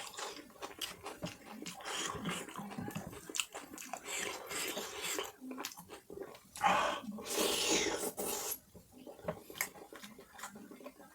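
Close-up chewing and mouth sounds of a person eating mutton curry with puri: many small clicks and smacks, with a louder, hissy stretch about seven seconds in.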